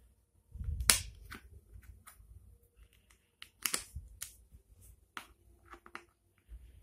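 Wooden Tetris-shaped puzzle pieces clicking and tapping against each other and the wooden tray as they are fitted in: a string of irregular sharp clicks, the loudest about a second in with a dull thump.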